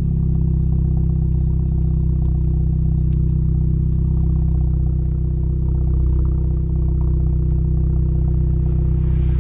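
Seat Leon Cupra's 2.0 TSI turbocharged four-cylinder engine running at steady revs through a Milltek Sport exhaust, with a loud, even drone that does not rise or fall in pitch.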